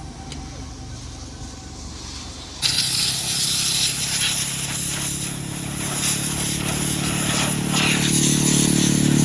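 High-pressure washer jet switching on suddenly about two and a half seconds in: a loud, steady hissing spray with a motor hum beneath that climbs a little near the end.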